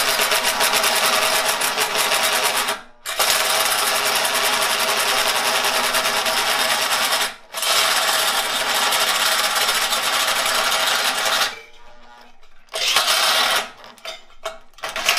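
Electric drill spinning a bi-metal hole saw as it cuts through a steel bumper support, the drill overloaded and smoking. It runs in three long stretches with brief stops, then stops near the end apart from two short bursts.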